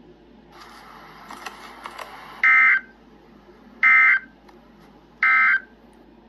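Emergency Alert System SAME end-of-message data bursts: three short, loud buzzy digital chirps about 1.4 s apart, signalling that the alert broadcast has ended. Before them comes a stretch of faint hiss with a few clicks.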